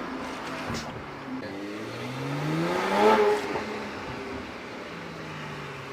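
BMW 335i's N54 twin-turbo straight-six engine and exhaust: the engine note climbs from about two seconds in to a loud peak near three seconds, then drops back and runs on at a steady lower pitch that sags slightly near the end.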